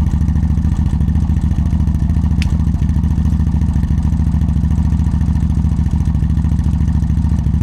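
CF Moto ATV engine running steadily at an even idle, starting and running again after its oxidised ignition switch was cleaned with contact spray. There is one brief light tick about two and a half seconds in.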